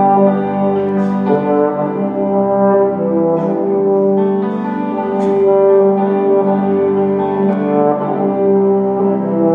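Orchestra playing a slow passage of long held notes that change every second or so.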